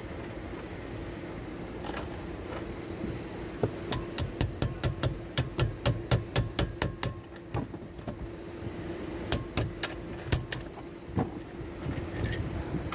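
Quick runs of sharp metallic clicks, about five a second, from a hand tool working on steering-column parts, over a steady hum; the clicks stop for a couple of seconds in the middle, then resume briefly.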